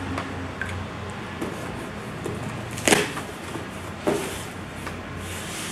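A taped cardboard shipping box being opened by hand: tape pulled loose and the cardboard flaps worked open. There is a sharp rip about three seconds in, the loudest sound, and a smaller one about a second later, with light handling clicks between.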